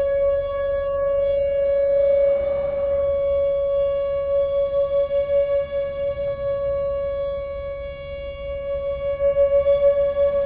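Outdoor warning siren holding one steady tone with a stack of overtones, its loudness wavering: the steady alert signal of a siren test.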